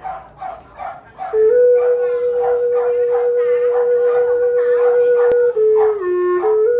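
Hmong bamboo flute (sáo Mông) holding one long steady note for about four seconds, then stepping down through a few lower notes near the end. Before the flute comes in there is about a second of quick repeated pulses, roughly three a second, which carry on faintly beneath it.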